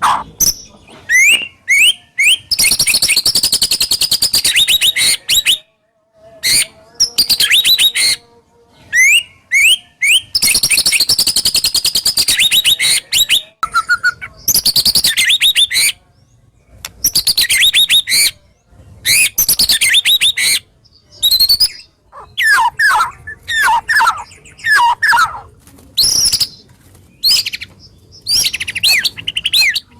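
White-rumped shama (murai batu) singing loud phrases of rapid, high repeated notes and sliding whistles, broken by short pauses. These are the harsh, sharp bursts (tembakan kasar dan tajam) that shama keepers play to get a silent bird singing.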